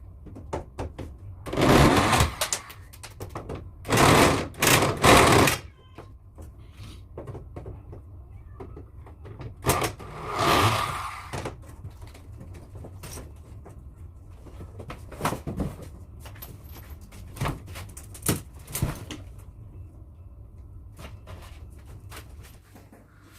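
Knocks and clatter from dismantling a wall partition by hand, with several short, loud scraping or tearing noises in the first half and scattered sharp clicks later.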